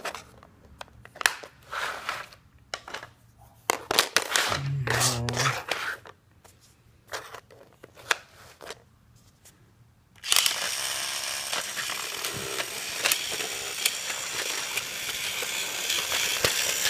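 Plastic toy train track pieces being handled and fitted together: scattered clicks and knocks with quiet gaps between them. About ten seconds in, a steady crackling noise starts suddenly and keeps going.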